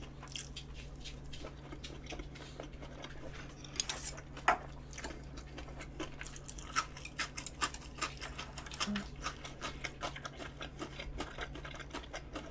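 Eating sounds: chewing with irregular small clicks and clinks of cutlery on dishes, the sharpest about four and a half seconds in, over a low steady hum.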